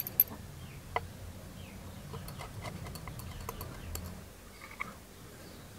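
Stirring rod tapping against a small glass tumbler of liquid silicone: a clink at the very start and another about a second in, then only faint scattered ticks over a low hum.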